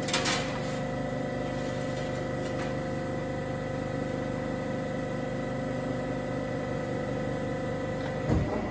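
Amada APX 103 CNC press brake running through a bend on an aluminium panel: a steady machine hum with a held whine, a short clatter right at the start, and a thump about eight seconds in as the hum stops.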